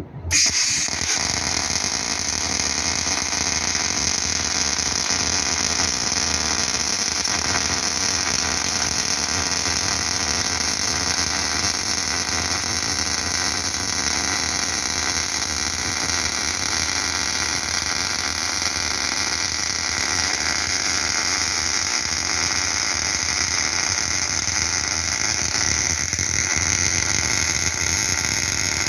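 MIG welder arc running on CO2 shielding gas while laying a vertical-down butt weld: a steady, unbroken hiss that starts abruptly as the arc strikes, just after the start.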